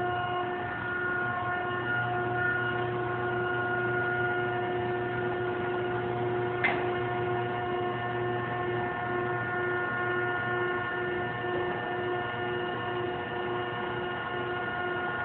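Fox Baler model 60 cardboard baler's motor running with a steady hum made of several fixed tones. A single sharp click comes about halfway through.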